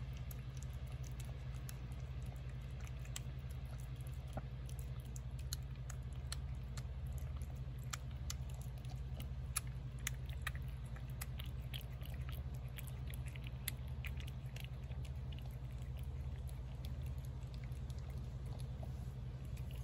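A cat chewing and lapping wet cat food in gravy from a plate: a run of small, irregular wet clicks, over a steady low hum.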